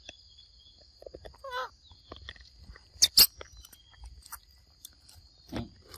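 Steady high-pitched insect chorus, with a short wavering call about a second and a half in and two sharp clicks about three seconds in.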